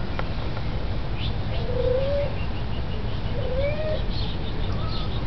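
Two short rising animal calls, about a second and a half apart, over a steady low rumble, with a fainter, higher call near the end.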